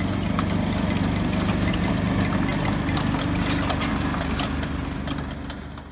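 John Deere Gator utility vehicle's engine running steadily while towing a rebuilt John Deere side-delivery hay rake, with rapid light clicking and rattling from the rake. The sound fades out near the end.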